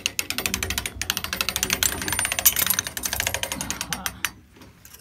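Hand-cranked souvenir penny-press machine being turned, its gears and ratchet giving a rapid run of clicks as it rolls the penny flat into an elongated souvenir; the clicking stops about four seconds in.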